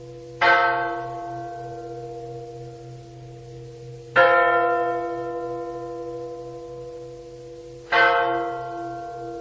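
A large bell tolling slowly, struck three times about four seconds apart, each stroke ringing on and fading, over a low steady pulsing drone.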